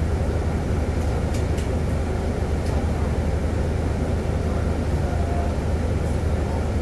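City bus engine running steadily, heard from inside the cabin, a constant low hum while the bus waits with little or no movement; a few light cabin rattles and clicks about a second in.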